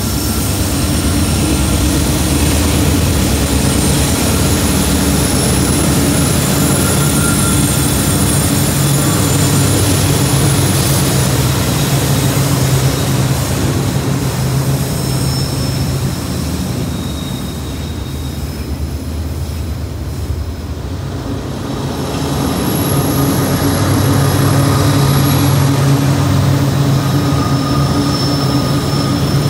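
Kansas City Southern and Union Pacific diesel-electric freight locomotives running across a steel truss bridge close by: a loud, deep, steady engine drone with high whining tones over it. It eases a little about two-thirds through, then swells again as the next locomotives cross.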